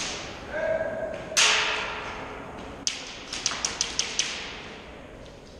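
Airsoft guns firing in a large echoing hall: a sharp crack about a second and a half in that rings on in the room, then a quick string of about half a dozen sharp snaps a little past the middle.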